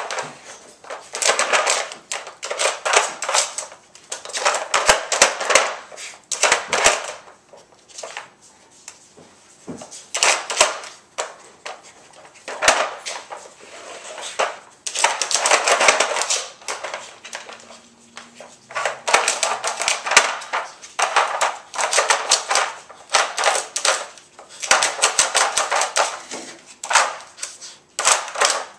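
Hard plastic dog puzzle feeder clattering and scraping on a tile floor as a puppy paws and noses at its sliding chambers. It comes in repeated bursts of clicks and rattles, each a second or two long, with short pauses between.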